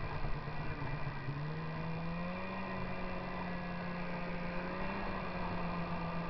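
Snowmobile engine running at steady throttle while riding, its pitch rising a little about a second and a half in and then holding.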